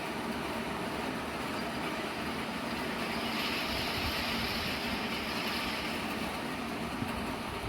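Heavy rain falling in strong wind, a dense steady hiss that swells for a few seconds in the middle.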